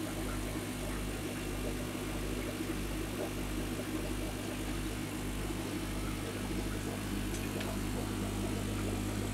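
Steady electrical machine hum made of several constant low tones over a faint hiss, with the deepest tone throbbing about one and a half times a second.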